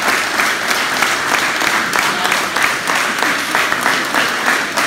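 Applause from a group of people clapping their hands, dense and unbroken.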